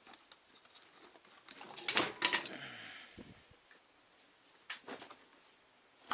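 Metal hand tools clinking and clattering as they are handled and set down, a few sharp knocks with a short rustle between them.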